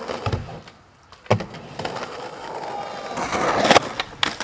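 Skateboard: a low thump, then a sharp knock of the board about a second later, then wheels rolling that grows louder and rougher as the board rides up a textured concrete wall in a wallride; two sharp clacks near the end.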